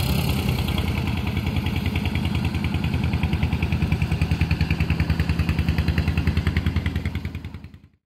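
Small boat's engine chugging steadily with a fast, even pulse as the boat passes, fading away near the end.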